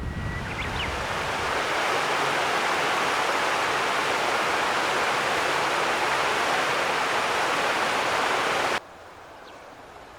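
Steady rushing of river water, an even hiss with no rhythm, that cuts off abruptly near the end.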